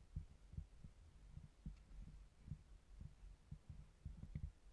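Faint, muffled low thumps coming irregularly a few times a second: the wearer's footsteps and movement knocking through the housing of a body-worn action camera.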